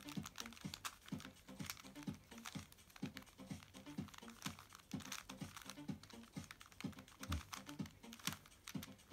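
Plastic pieces of an Axis Cube clicking and clacking as its layers are turned by hand, in a faint, irregular run of small clicks.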